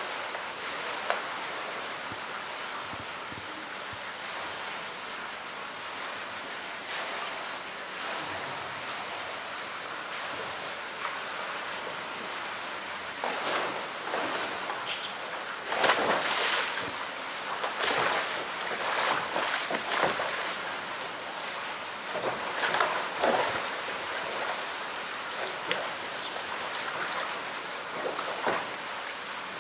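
Polar bear shoving a blue plastic drum along wet concrete and into the pool: irregular hollow bumps, scrapes and sloshing water, starting about halfway through and loudest in the second half. A steady high drone of cicadas runs under it.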